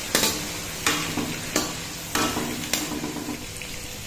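Masala-coated meat pieces frying in hot ghee in a karahi, with a steady sizzle. A ladle stirs them, striking and scraping the pan five times at about two-thirds of a second apart, and the strokes stop after about three seconds.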